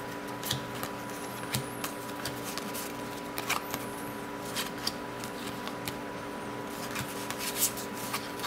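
Cardboard trading cards being flipped through by hand: irregular soft flicks and slaps as single cards are slid off the stack and tucked behind, over a steady background hum.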